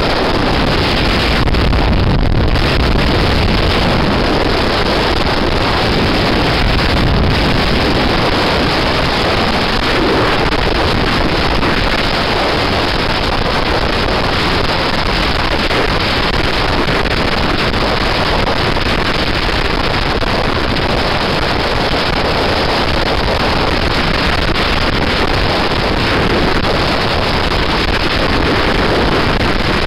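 Steady rush of wind and road noise from a motorcycle riding at highway speed, with wind buffeting the microphone.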